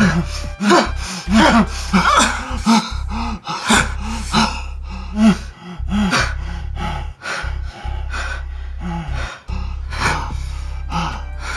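A man gasping and moaning in short breathy bursts, about one or two a second, in sexual arousal close to climax, over soft background music.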